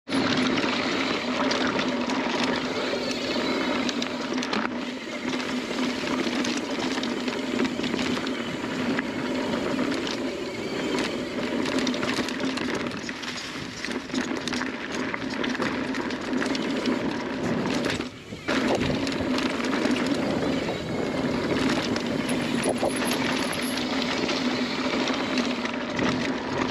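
Mountain bike ridden fast down a dry dirt trail: tyre noise over dirt and roots with the bike rattling and knocking over bumps, and a steady low hum underneath. The noise drops briefly about 18 seconds in.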